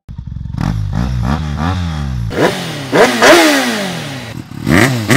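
Motorcycle engine revved again and again in throttle blips, each rising and then falling in pitch; quick short blips at first, then longer, louder revs from about halfway.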